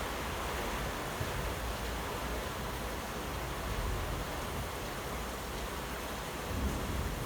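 Heavy rain falling steadily as an even hiss, with a low rumble starting to build near the end.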